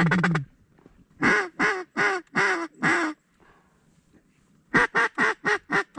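Hand-held duck call blown to bring circling ducks back to the decoys: a short rapid chatter at the start, then a run of five drawn-out quacks about a second in, and six quicker quacks near the end.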